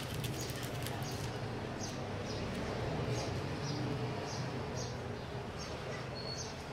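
Small bird chirping repeatedly with short high chirps, about two a second, over a low steady hum. Paper and plastic rustle in the first second as stencil backing is peeled off the fuel tank.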